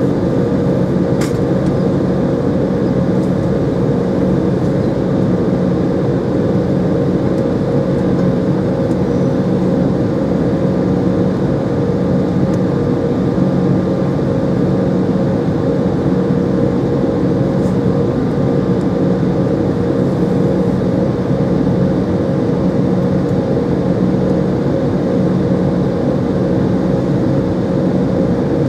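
Embraer 190's twin GE CF34-10E turbofan engines at ground idle, heard inside the passenger cabin as a steady hum with a few constant tones while the jet stands holding for take-off. A faint click about a second in.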